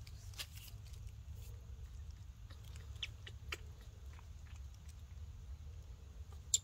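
Small wet clicks and smacks of a baby monkey suckling at a milk bottle's teat, scattered and irregular over a steady low hum, with one sharper click near the end.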